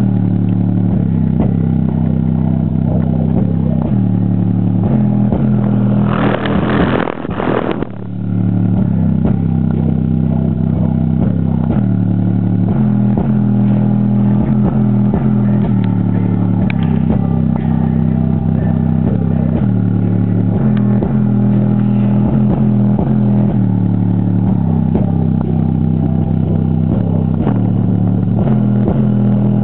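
Subwoofer playing a bass-heavy electronic track at high volume, deep bass notes changing every second or two in a repeating pattern, heavily distorted by the camera's overloaded microphone. A brief rushing noise cuts in about six seconds in.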